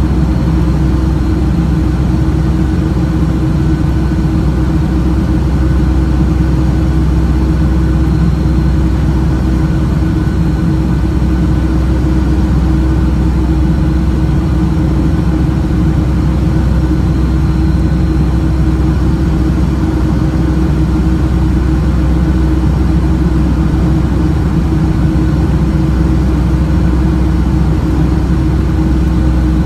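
Steady cabin noise of a Boeing 757-200 climbing out, heard from a seat over the wing: jet engine drone and airflow as a low rumble with a constant hum through it.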